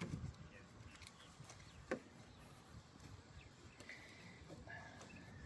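Faint clicks and knocks of hands working parts and wiring in an engine bay, the sharpest about two seconds in, with a couple of faint short high tones near the end.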